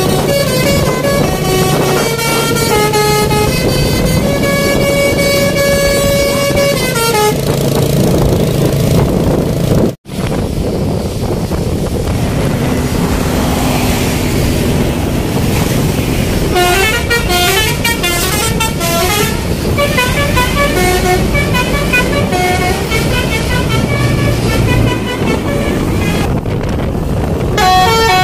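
Telolet Basuri musical bus horns playing quick stepping multi-note tunes over road and engine noise. The sound cuts out for an instant about ten seconds in. A stretch of mostly traffic noise follows before the horn melodies start again.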